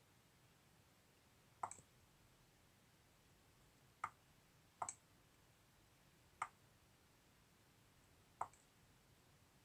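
Five sharp clicks from the computer's controls as a web page is scrolled down, spaced one to two seconds apart. The first and last are each followed closely by a softer second click, like a press and release.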